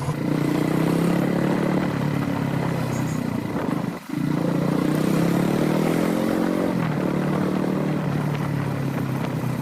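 Royal Enfield motorcycle engine running steadily while being ridden. The sound breaks off briefly about four seconds in, then the engine note climbs a little and eases back near seven seconds.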